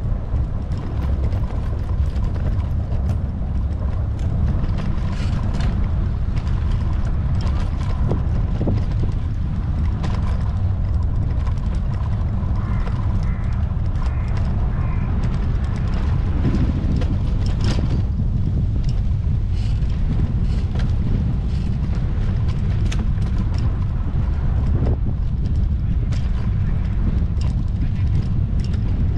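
Steady low rumble of wind and riding noise from a bicycle rolling along a paved path, with scattered clicks and rattles.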